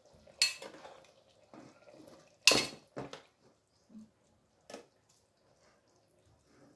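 Metal kitchen tongs clinking against a bowl and pan while braised pork is served out: a few sharp clinks, the loudest about two and a half seconds in, with softer taps between.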